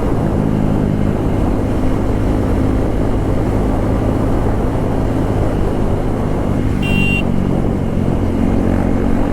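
KTM Duke 390's single-cylinder engine running loud at a steady pace through an exhaust with the stock silencer removed. A brief high-pitched tone sounds about seven seconds in.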